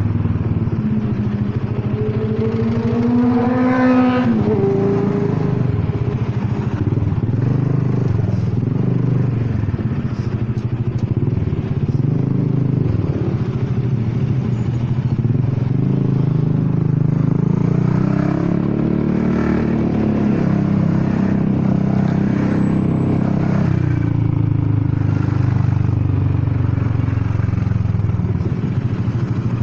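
Honda Forza 300 scooter's single-cylinder engine and exhaust running in stop-and-go riding, pitch climbing as it accelerates about a second in and falling off at around four seconds, then rising and falling again past the middle. The exhaust is too loud, which the rider puts down to a damaged exhaust.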